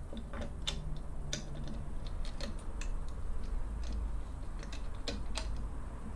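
Metal clutch side cover of a Honda FTR223 engine being pushed into place on the engine case by hand: irregular light clicks and taps of metal on metal as it is seated.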